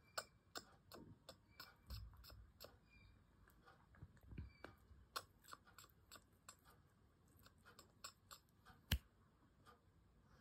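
A German Spitz licking its paw: faint, irregular wet tongue clicks and smacks, several a second, with one sharper click about nine seconds in.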